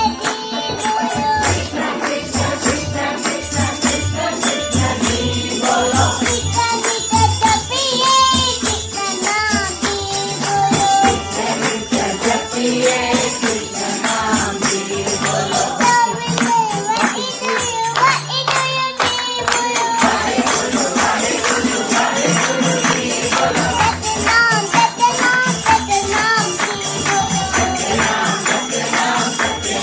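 Devotional bhajan sung by a small child's voice into a microphone, with jingling percussion and a steady low drum beat.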